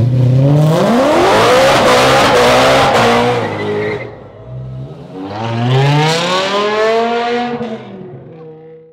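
BMW M3 E92's V8 with a custom exhaust under hard acceleration. The engine note climbs steeply about half a second in and holds a loud rasp for a couple of seconds, then eases around four seconds. A second hard acceleration rises again about five seconds in and falls away near the end.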